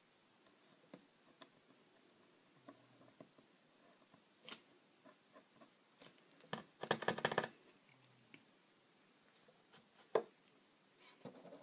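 Faint handling of a paint marker and a small card on a wooden table: light taps and scratches, a short rapid rattle of clicks about two-thirds of the way in, and one sharp click shortly after.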